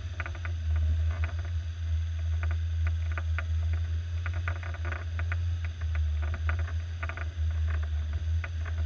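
Suzuki SJ413's 1.3-litre four-cylinder engine running steadily as the off-roader crawls over a rocky, rutted trail, a constant low drone. Scattered clicks and rattles come from the vehicle jolting over the rough ground.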